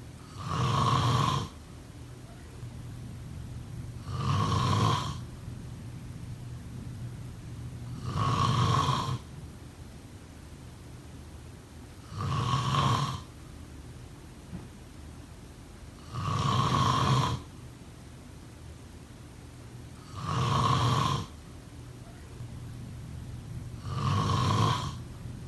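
A person snoring in their sleep: seven loud, rasping snores at an even pace of about one every four seconds, each lasting about a second.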